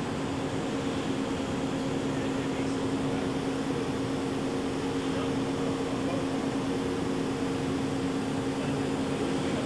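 Steady machine hum in a shop: a low even drone with a higher hum above it, over a soft hiss, with no punching strokes.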